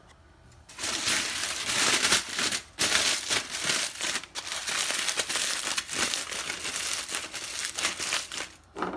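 Aluminium foil crinkling and crackling as it is scrunched and pulled tight by hand around a food parcel, starting about a second in and going on in quick irregular crackles.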